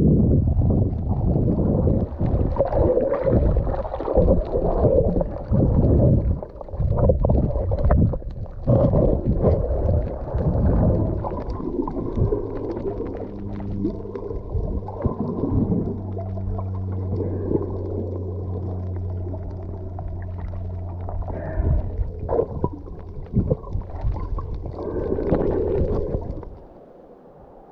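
Water rumbling and sloshing over a camera microphone held underwater, with a steady low hum from about twelve to twenty-two seconds in; the sound drops away sharply just before the end.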